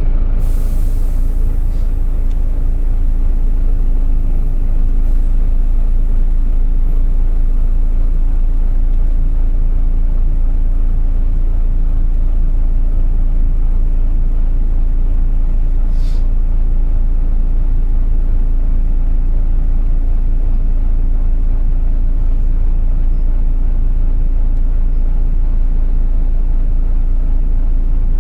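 Volvo B9TL double-decker bus's six-cylinder diesel engine running steadily, heard on board: a low rumble with a steady whine over it. There is one brief click about halfway through.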